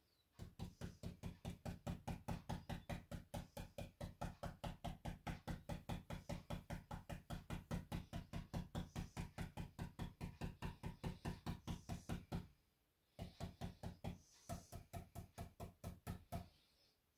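Stenciling brush pounced straight up and down on a wooden sign board through a stencil, a rapid run of soft taps about five a second. The tapping pauses briefly about three-quarters through, then resumes.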